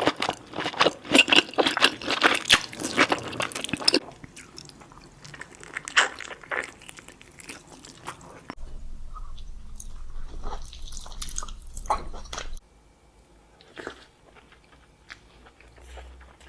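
Close-miked chewing and crunching of crisp food, with loud, dense crunches for the first four seconds, then quieter scattered bites and chewing. The sound changes abruptly about four seconds in and twice more later.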